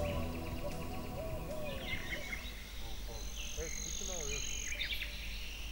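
Birds chirping and calling, with a steady high insect trill that comes in about halfway through and a low steady hum underneath.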